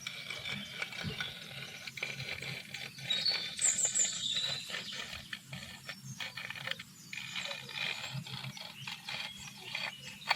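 Outdoor ambience with short high animal chirps and scattered clicks and taps over a low steady hum.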